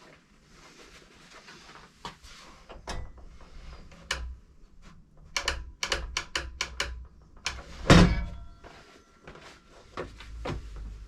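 Knocks and clicks of things being handled at a workbench, with a quick run of sharp clicks around the middle and one heavy thump about eight seconds in.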